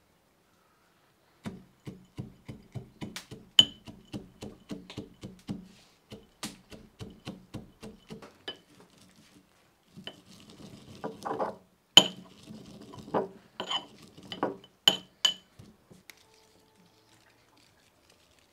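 Metal pestle pounding garlic and nuts in a metal mortar. A run of quick, light strikes, about three a second, gives way to harder, irregular blows with a clinking metallic ring.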